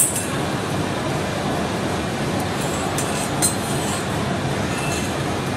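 Steady background noise with light metal clinks from stainless steel channel-letter strips being handled against a metal table: a sharp clink right at the start and two more a little after three seconds in.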